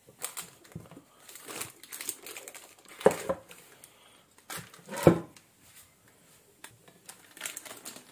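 Baking parchment crinkling and rustling under the hands, with scattered small clicks. Two sharp knocks, about three and five seconds in, as the glass baking dish and the ceramic plate knock together while the dish is turned over onto the plate and lifted off.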